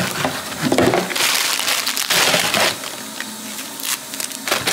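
Thin clear plastic wrapping crinkling and crackling as it is pulled off a roll of toilet paper, in a few noisy bursts, loudest between about one and three seconds in.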